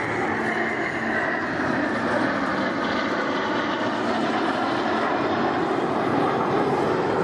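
Jet noise from a formation of Dassault/Dornier Alpha Jets, each with twin Larzac turbofans, flying past in display. It is a steady rushing sound, with a whine that falls in pitch over the first couple of seconds as the jets pass.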